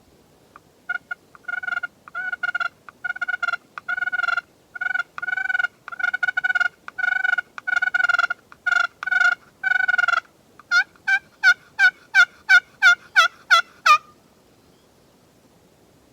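Turkey hen yelps, loud and close, most likely made on a hunter's turkey call: a long series of even yelps about two a second, then a quicker run of about a dozen sharper notes that stops short about 14 seconds in.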